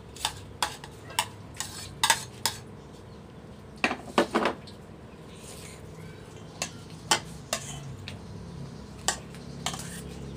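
Metal spoon clinking and scraping against bowls as cucumber slices are scraped into a stainless steel bowl and the vegetable salad is tossed. The clinks come irregularly, with a quick cluster of several about four seconds in.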